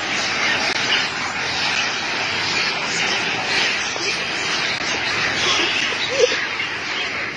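A large troop of macaques screeching and squealing together in a dense, continuous din, with one short louder squeal about six seconds in.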